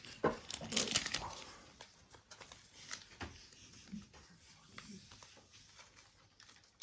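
Trading cards being handled: a burst of clicks and rustling in the first second or so, then quieter scattered card-handling ticks with a faint murmur of voice.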